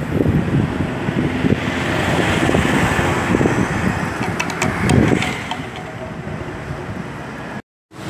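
Windstorm gusts buffeting the microphone as a bicycle rides along a street, mixed with the sound of passing traffic, swelling about five seconds in as a van goes by. The sound cuts off suddenly just before the end.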